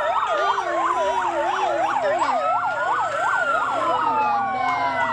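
Several fire engine sirens sounding together: a rapid yelp rising and falling about two and a half times a second over slower wails that glide up and down.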